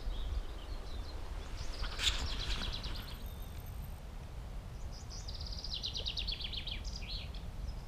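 A songbird singing two fast trilled phrases, about a second in and again near the end, the second falling in pitch, over a steady low background rumble.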